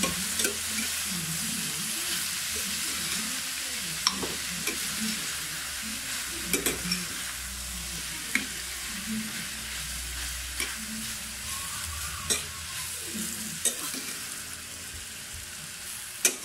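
Sliced bitter melon and tomato sizzling in hot oil in a metal pan, stir-fried with a metal spatula that clinks and scrapes against the pan now and then.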